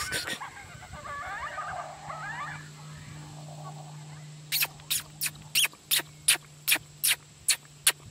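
A dog whining in wavering high-pitched tones over the first three seconds. From about four and a half seconds, short, sharp sounds repeat evenly, about two and a half a second.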